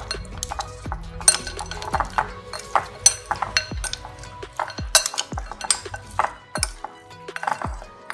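A metal fork clinking and scraping against a glass mixing bowl as mutton chops are tossed to coat them in masala marinade. The clinks come irregularly throughout.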